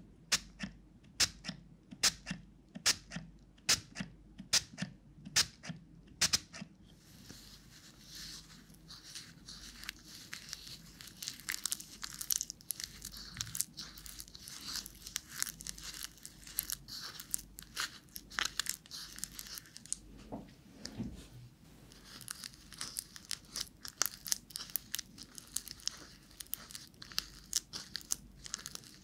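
Pump spray bottle spritzing water into a plastic cup of dry cosmetic clay powder in short, evenly spaced bursts about twice a second for the first six or so seconds. After that a mask brush stirs and mixes the wet clay in the cup, giving a dense, crackly, squelching sound.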